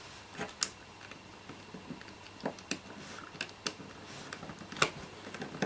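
Plastic casing parts of an in-flight entertainment handset being handled and fitted together: a dozen or so small, irregular clicks and taps, the sharpest near the end.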